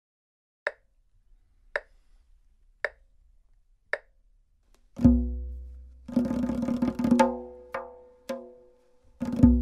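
Four evenly spaced clicks, about one a second, give a one-bar count-in. Then a tombak (Persian goblet drum) plays a 4/4 exercise: a deep ringing stroke, a quick roll, sharp single strokes, and another deep stroke near the end.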